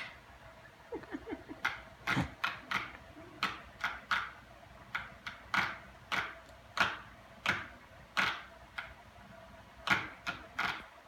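An uneven run of sharp taps or knocks on something hard, about two a second, over a faint steady hum.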